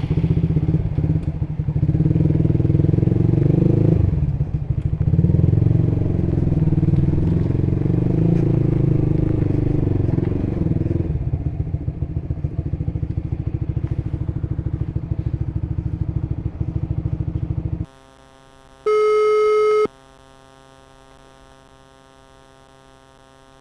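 Honda Supra GTR150's single-cylinder engine running through an aftermarket exhaust. It changes pace around four seconds in, runs steadier and lower from about eleven seconds, and cuts off suddenly about eighteen seconds in. A second later a short electronic beep sounds over a faint hum.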